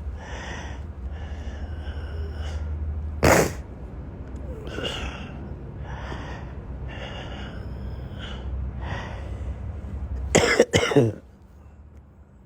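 A man with a cold coughing: one hard cough about three seconds in and a double cough near the end, with fainter breaths between. A low steady hum underneath stops at the last cough.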